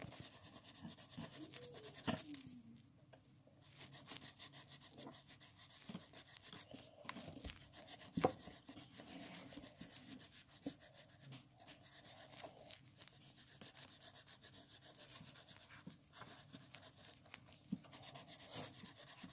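Pencil shading on paper: faint, quick scratching strokes of the lead, pausing briefly about three seconds in, with one louder knock about eight seconds in.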